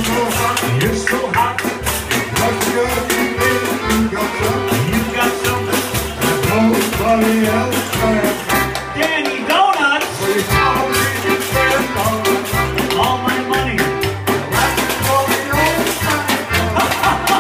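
Polka band playing live: accordion melody over an oom-pah bass that alternates on the beat, with steady rhythmic crashes and jingles from a pogo cello (stump fiddle).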